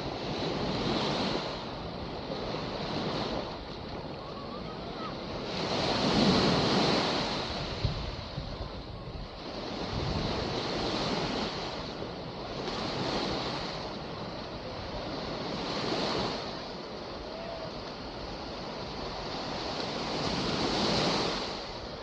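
Small waves breaking and washing up a sandy shore, swelling and fading every few seconds, with some wind on the microphone.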